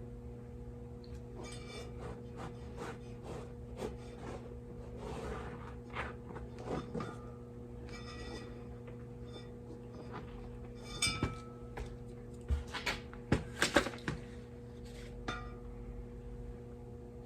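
Scattered light clicks, clinks and knocks from handling a lawn tractor tire and tools, with a cluster of louder knocks about eleven to fourteen seconds in, over a steady low hum.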